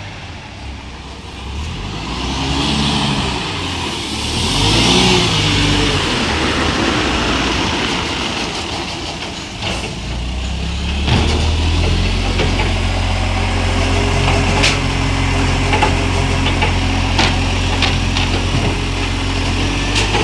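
Garbage truck's Euro 6 diesel engine with an exhaust leak: it revs up and down twice in the first few seconds, then from about ten seconds in runs at a steady raised speed. A few sharp knocks sound over the engine in the second half.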